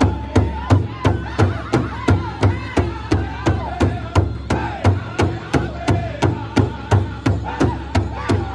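Powwow drum group singing together in high voices over a steady beat, about three to four strokes a second, struck in unison on one large shared hide drum.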